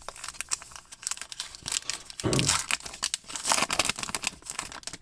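Crinkling and tearing of a trading card pack's wrapper, with irregular rustles and crackles as the cards are handled.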